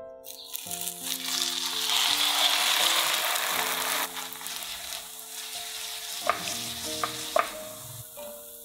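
A zucchini, egg and oatmeal pancake sizzling in hot oil in a frying pan as the flipped pancake goes back in. The sizzle swells loud within the first couple of seconds and then eases off. Background music plays throughout, and there are a few light clicks near the end.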